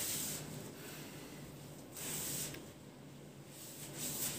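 Cotton bed sheet rustling as gloved hands spread and smooth it over a mattress, in three soft swishes about two seconds apart.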